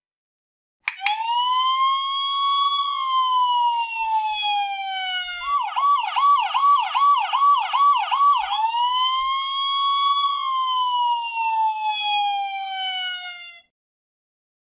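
Playmobil 9466 toy fire truck's electronic sound module playing a siren: a slow rising-and-falling wail, then a fast yelp of about seven quick sweeps, then the slow wail again, cutting off suddenly near the end.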